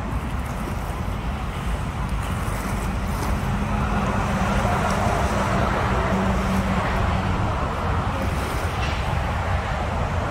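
Steady low rumble of distant engine noise, with a droning hum that swells from about three and a half seconds in and fades around seven seconds.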